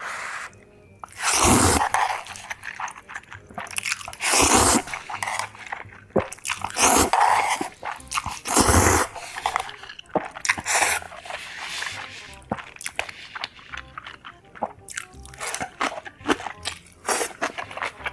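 Crunchy food being bitten and chewed close to the microphone: five or six loud crunches in the first half, then many small, quicker crunching clicks of chewing.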